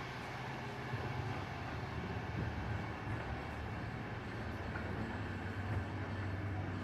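VR passenger train running, a steady low rumble and hiss of the moving carriage heard from inside.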